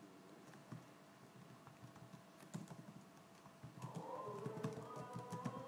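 Typing on a computer keyboard: quiet, irregular key clicks. A faint wavering tone joins about four seconds in.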